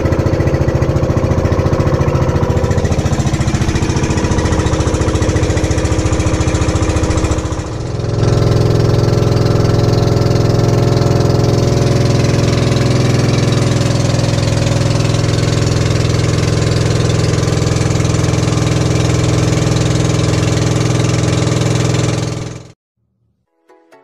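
Outrigger bangka boat's engine running steadily and loud under way. The sound dips briefly about a third of the way through, then cuts off suddenly just before the end.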